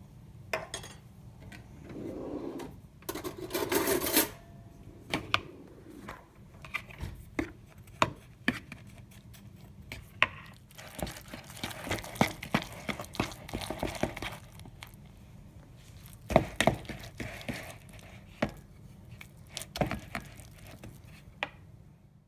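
A metal fork mixing soft cottage-cheese dough in a plastic bowl, with irregular clicks, taps and scrapes against the bowl. There is a louder rustling stretch a couple of seconds in.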